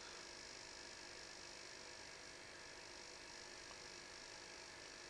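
Near silence: faint steady hum and hiss of room tone, with no distinct events.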